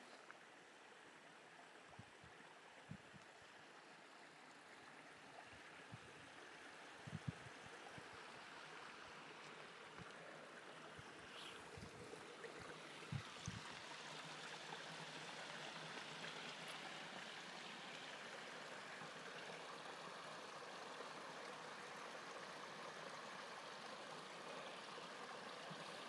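Small rocky stream trickling and splashing over stones, faint and steady, growing a little louder over the first half. A few soft low thumps in the first half.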